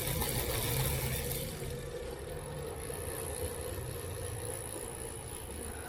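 Shimano Altus rear freehub ratcheting as the back wheel of a bicycle spins freely: a steady rapid clicking buzz, loudest in the first second or two and then easing slightly, the hub running smoothly.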